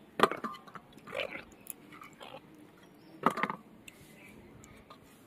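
Hands swishing and rubbing green tomatoes in a clay bowl of water: four short wet splashes and sloshes about a second apart.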